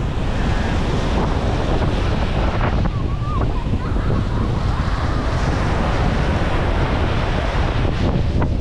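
Sea surf breaking and foam washing up a sandy shore at the water's edge, with wind buffeting the microphone as a steady low rumble.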